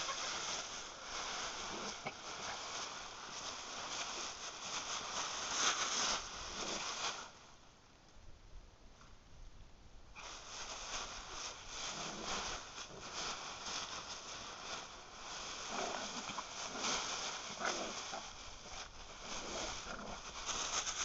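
Dry fallen leaves rustling and crackling as a Weimaraner and a small dog play and burrow in a leaf pile. The sound eases off for a couple of seconds in the middle, then starts again.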